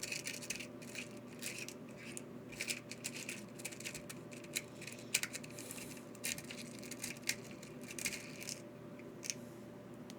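Small metal screws and hardware clicking and rattling against each other as they are picked through by hand, with many irregular light clicks.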